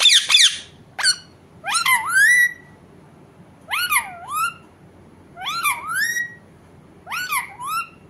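Rose-ringed parakeet calling: a fast run of harsh squawks ends just after the start, then a short call about a second in and four more two-part calls, each a few sharp notes sliding down followed by a whistle that dips and rises, coming about every one and a half to two seconds.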